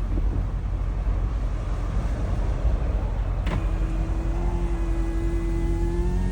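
Strong wind blowing across the microphone, a steady low rumble. About halfway through, after a click, a steady tone comes in and rises slightly in pitch.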